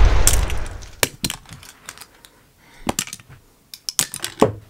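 The tail of an explosion dies away over the first second. Then comes a scattered run of sharp plastic clicks and clatters in small clusters, from LEGO bricks and broken pieces of a LEGO plane being handled on carpet.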